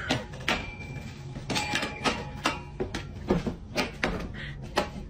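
Irregular rattling clicks and knocks: a wire rack stuck around a dog's neck clattering as the dog walks.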